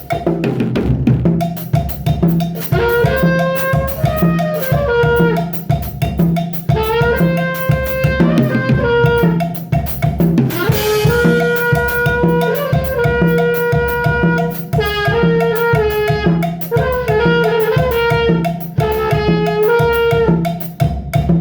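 Music: a drum kit keeps a steady beat under phrases of a held, pitched lead melody.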